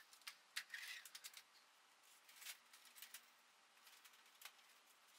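Near silence: room tone with scattered faint clicks and rustles of light handling, most of them in the first second and a half.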